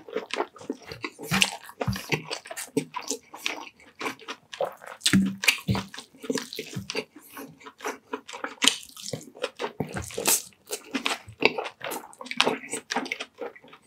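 Close-miked wet mouth sounds of a person eating creamy pork in coconut-milk sauce with rice: chewing and lip smacking in a quick, irregular run of clicks and smacks.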